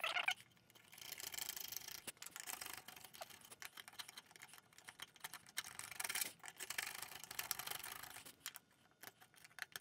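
Hand router plane paring wood from the floor of a rabbet: faint scraping strokes with small clicks, in runs of a second or two with short pauses between.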